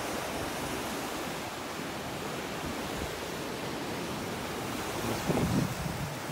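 Ocean surf washing onto a sandy beach, a steady hiss, with a brief louder low rumble about five seconds in.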